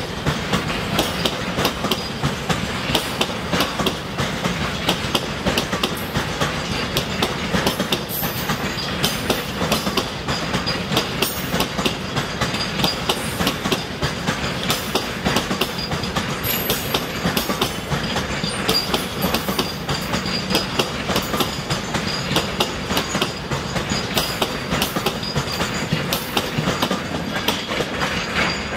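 Container flat wagons of a freight train rolling past, their wheels clicking steadily over the rail joints in a rapid, continuous clickety-clack.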